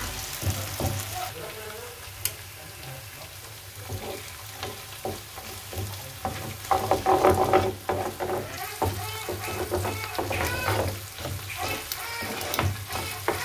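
Chopped onion and tomato paste sizzling in oil in a frying pan, with a wooden spoon stirring and knocking against the pan; two eggs fry in the mixture and are broken up with the spoon. The sizzling and knocking get louder for a moment in the middle.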